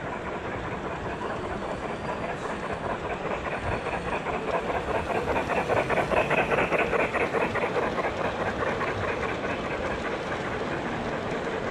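Large-scale model train, a Denver & Rio Grande steam locomotive pulling freight cars, rolling past on garden-railway track: a fast, even clicking of wheels over the rails that grows louder as the train comes by, peaks about halfway through, then fades.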